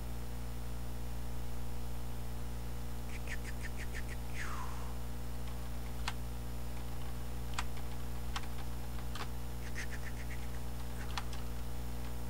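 Steady electrical hum with scattered computer-keyboard keystrokes: a quick run of clicks about three seconds in, single keys spaced a second or so apart, and another quick run near ten seconds. A short falling swish about four and a half seconds in.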